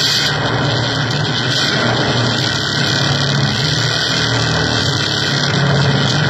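Steady, loud wall of electronic noise from a keyboard noise rig, a dense hiss-like wash over a low continuous drone, with no beat or break.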